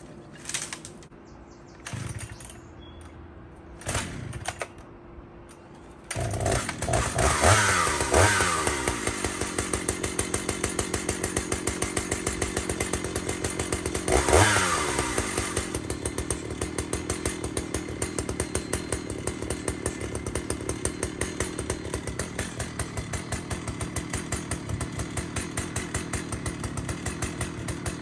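Jonsered two-stroke chainsaw starting up: two short bursts, then the engine catches about six seconds in. It is revved twice, each time falling back, and then idles with a steady fast putter.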